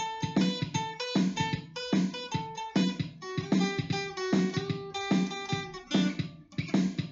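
Guitar strummed in a steady rhythm, about three strokes a second with the chords changing, and no singing: an instrumental break in the song.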